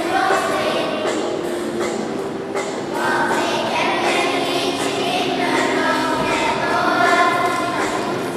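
Children's choir of primary-school pupils singing a song together, with long held notes in a large church.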